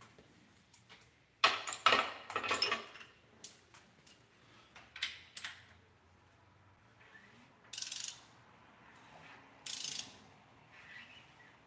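Hand tools at work on an engine: metal clinks and clatter about one and a half to three seconds in, then a few short bursts of ratchet-wrench clicking.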